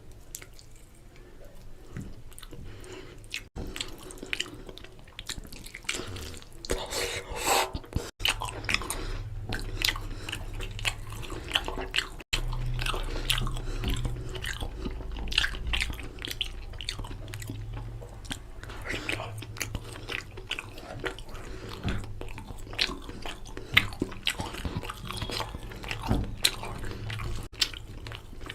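Close-miked chewing and wet mouth sounds of someone eating spicy mutton curry with rice: many small irregular smacks and clicks.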